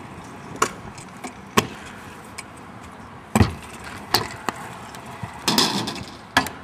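Stunt scooter wheels rolling on concrete, broken by sharp clacks and thuds of the deck and wheels hitting the ground, the heaviest about three and a half seconds in.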